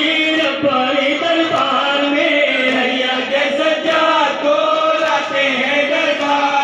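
Men chanting a noha, a Shia mourning lament, in long held notes that run without a break.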